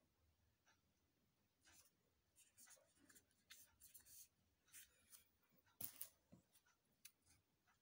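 Faint scratching and crinkling of shrink-wrap plastic on a CD package as it is handled and turned over, with one louder soft knock about six seconds in.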